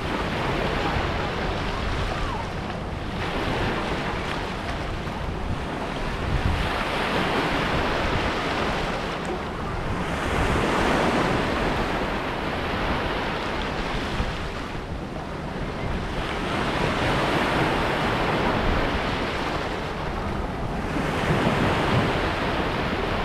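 Small sea waves breaking and washing up over sand and rocks, the surf swelling and easing every few seconds, with wind rumbling on the microphone.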